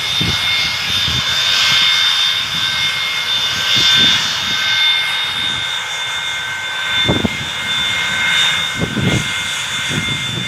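Jet engines of an Indonesian Air Force Boeing 737 running loud and steady, with a high turbine whine over a broad roar. A few low thumps come through late on.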